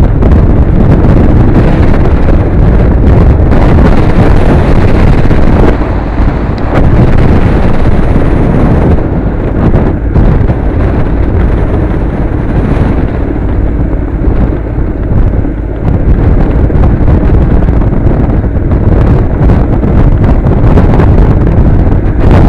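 Honda NC700 motorcycle riding a dirt road, its parallel-twin engine running under heavy wind buffeting on the bike-mounted camera's microphone. The sound is loud and steady, with brief dips in level.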